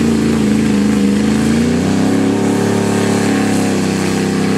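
Lifted mud-bog pickup truck's engine running hard under heavy load as it churns through a mud pit. The pitch wavers, then steps up a little under two seconds in and holds steady.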